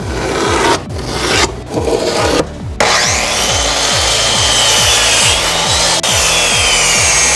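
Wood being worked with a rasping, abrasive tool for a box: separate strokes for the first three seconds or so, then one continuous rasp.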